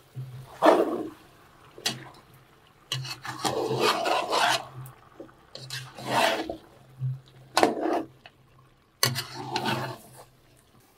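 Irregular rough rasping strokes, about six of them, each half a second to two seconds long, with the longest a few seconds in.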